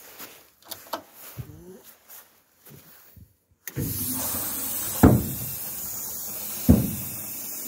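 Hydraulic system of a BAW dump truck's tipper starting up a little past halfway: a steady hiss of hydraulic oil flowing through the lines sets in suddenly and keeps on. Two dull thumps sound over it.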